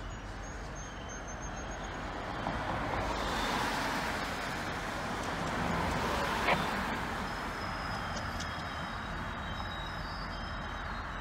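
Road traffic at a railroad grade crossing: a car's tyre and engine noise swells and fades as it drives past and across the tracks, with one short sharp knock about six and a half seconds in.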